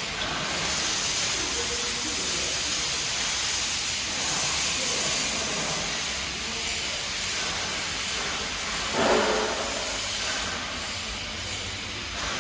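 ALTCK52D CNC turning-and-milling lathe running, a steady hiss-like machine noise with one short louder rush about nine seconds in.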